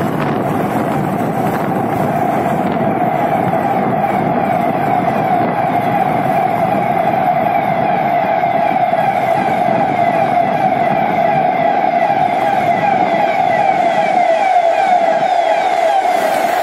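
Motorcycle riding steadily through a road tunnel: a constant drone with a strong, slightly wavering tone over a rushing noise.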